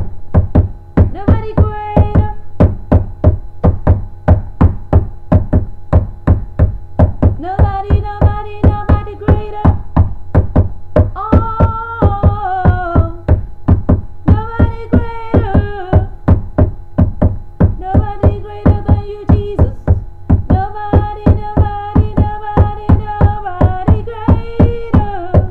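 A woman singing unaccompanied gospel in long held notes without words, over a steady beat of low knocks, about three a second, that are louder than the voice.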